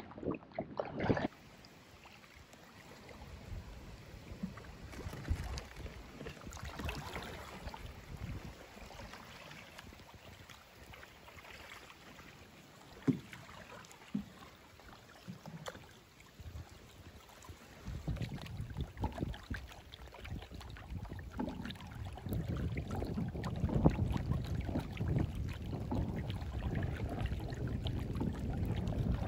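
Canoe paddling on calm water: paddle strokes and water lapping at the hull, with small knocks. Wind rumbling on the microphone builds through the second half.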